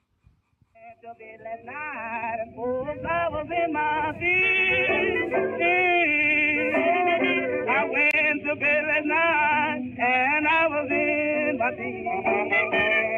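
Background music with a singing voice, coming in about a second in and building up over the next few seconds; the sung notes waver strongly.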